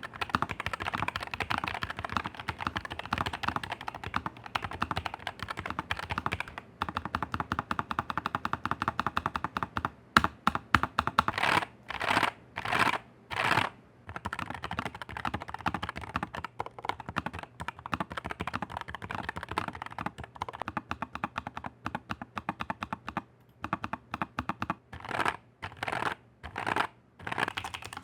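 Rapid, continuous typing on a low-profile mechanical keyboard: a dense stream of key clicks, with a few brief pauses and short runs of louder, faster keystrokes around the middle and again near the end.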